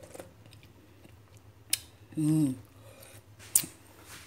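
A spoon clicking against crockery, then a short hummed "mmm" as the broth is tasted, then a sharper, louder click of the spoon. A faint steady low hum runs underneath.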